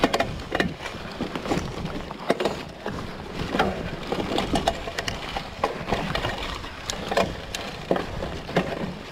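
Mountain bike rolling along a leaf-covered forest trail: tyres running over fallen leaves, with frequent short clicks and knocks from the bike over the rough ground and a steady low rumble.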